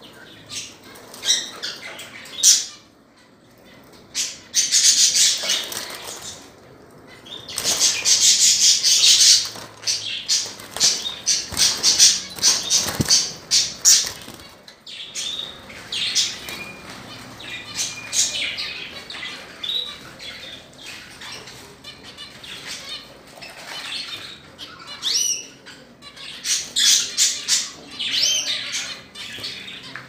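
Caged budgerigars chattering and warbling: a steady stream of quick chirps, short whistled glides and scratchy squawks, with louder bursts of chatter.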